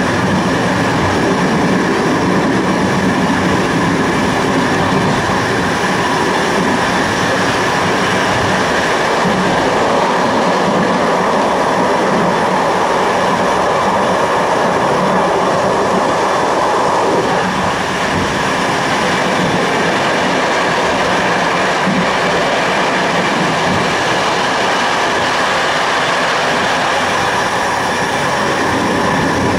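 A passenger train running at speed: the steady rolling noise of its wheels on the rails.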